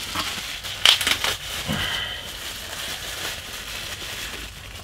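Clear plastic packaging crinkling and rustling as it is handled and pulled open by hand, with a few sharp crackles about a second in.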